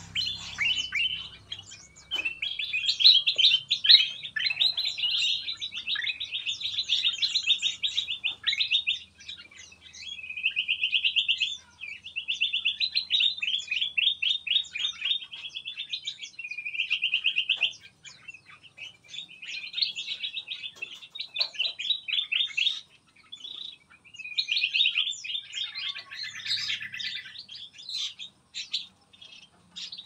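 Small songbirds in an aviary singing: rapid chattering trills in phrases of one to three seconds, broken by short pauses, with several birds overlapping.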